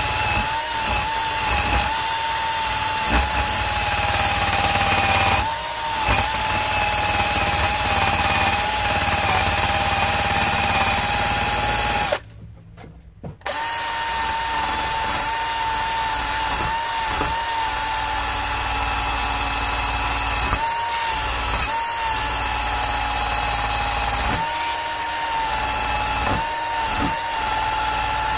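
Power drill spinning a wire wheel brush against a cast copper ingot: a steady motor whine with scratchy brushing, cleaning the ingot's surface. It stops for about a second midway and starts up again, dipping briefly a few times as the brush is pressed on.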